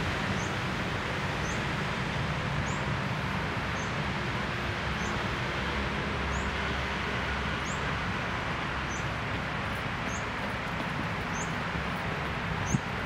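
Outdoor city-park ambience: a steady hum of distant city traffic, with a small bird's short, high chirp repeated about once a second. A single thump near the end.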